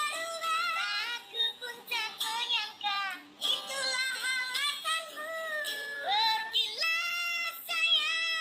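A very high-pitched singing voice over music, moving through short phrases and a few long held notes, with pitch glides between them.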